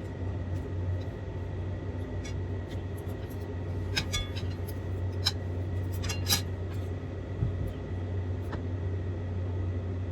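Cutlery clinking against a plate a handful of times during a meal: short sharp clinks, some with a brief ring, mostly about halfway through, over a steady low hum.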